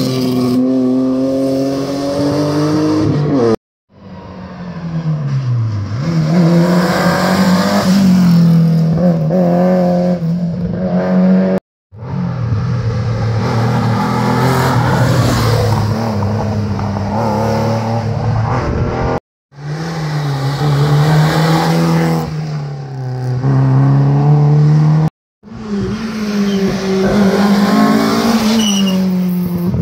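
Historic rally cars passing one after another at full speed, engines revving hard with the pitch climbing and then dropping at each gear change. They include a BMW E30 pulling away near the start and a Ford Escort Mk2 approaching near the end. The sound cuts off abruptly four times as one car's pass gives way to the next.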